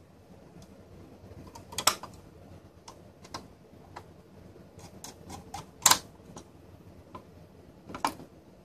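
Scattered sharp clicks and knocks from handling a small metal network-switch case, the three loudest just before 2 s, at about 6 s and at about 8 s.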